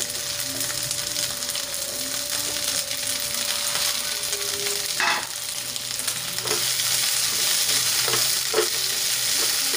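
String beans sizzling in hot oil in a nonstick frying pan, with a plastic spatula scraping and stirring through them in the second half.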